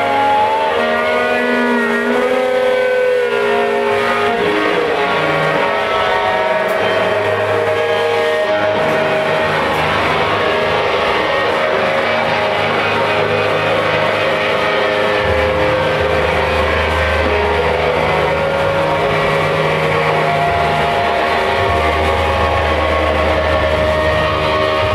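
A loud live rock band. An electric guitar holds bending, wavering tones in the first few seconds over a dense, noisy wash. An electric bass holds long low notes that become heavier after about fifteen seconds.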